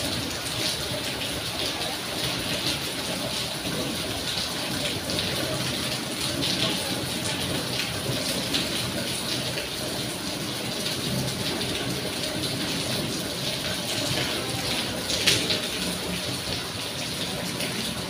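Steady rain falling and splashing, a continuous hiss of pouring water. One short sharp knock stands out near the end.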